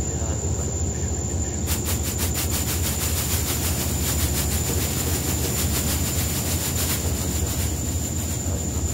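Electronic drone soundtrack: a steady low rumble with a thin high whine. About two seconds in, a fast, even clicking pulse of roughly eight clicks a second joins it and stops near the seven-second mark.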